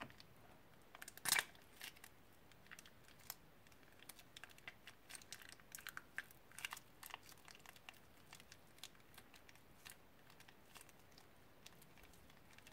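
Plastic piping bag full of foam beads crinkling as hands squeeze it, with scattered faint crackles and one louder crinkle about a second in.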